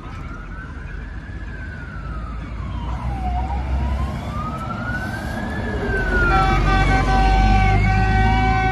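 Fire engine's electronic siren sounding a slow wail, rising and falling about every four to five seconds. About six seconds in, air horns join with a steady blaring chord, and a low-pitched Rumbler siren follows the wail underneath. A bus and then a car pass close by, their engines rumbling low underneath the siren.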